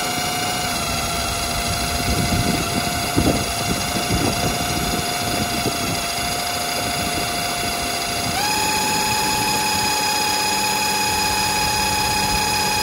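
Cordless impact driver spinning a drill-driven oil pump with a steady motor whine as the pump draws thick gear oil from the can and pushes it into the transmission. A little over halfway through, the whine steps up to a higher pitch and holds there.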